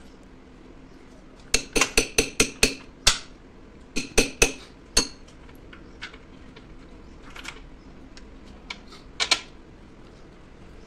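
Metal parts clinking and tapping against a steel transformer tank flange as they are handled: a quick run of about six ringing clinks about a second and a half in, more a couple of seconds later, and a last pair near the end.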